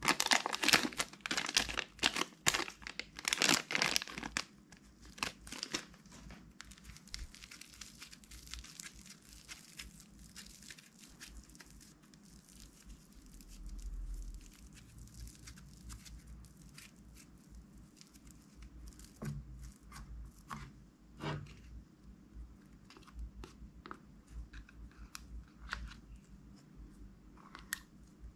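Thin clear plastic bag crinkling and rustling loudly as it is peeled off soft red slime, for the first four seconds or so. After that, quieter soft handling of the slime with a few small clicks.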